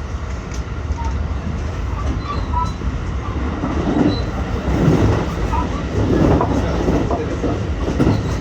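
JR West 223 series 2000 subseries electric multiple unit running at speed, heard from inside the car: a steady rumble of wheels on track that swells louder between about four and seven seconds in.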